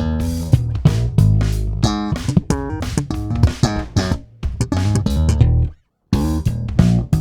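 Warwick Corvette $$ neck-through bubinga five-string electric bass being played: a run of plucked notes with deep sustained low tones. The playing stops dead for a moment about six seconds in, then picks up again.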